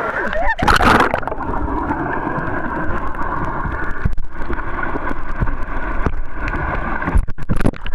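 Muffled underwater sound from a camera submerged in a swimming pool. It begins with a splash about a second in as the camera goes under, then steady bubbling and gurgling, with a few sharp splashes near the end.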